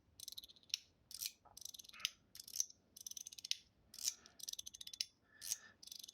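Stainless steel bamboo mechanical fidget slider being slid back and forth, its spring-and-ball detents snapping into place. About ten strokes, roughly two a second, each a brief high rattle ending in a sharp metallic click.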